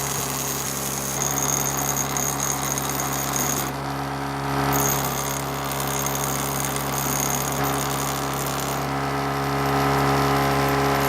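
Electric power tool running steadily as it works the rusty steel centre punch, a motor hum under a rattling scrape of metal. The high scraping eases off about four seconds in and again near nine seconds.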